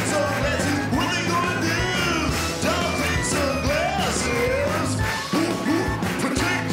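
Live band playing an upbeat rock tune on drums, electric guitars and keyboards, with a man singing over it.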